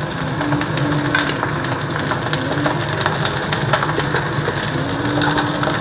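Leftover cooked rice frying in a pan with salted egg yolk, sizzling while a spatula scrapes and breaks up the clumps with many small clicks.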